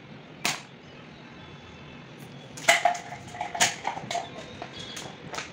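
A single sharp knock, then from about halfway a rapid run of hard knocks and clatters, a few of them briefly ringing, thinning out toward the end, over a steady low background noise.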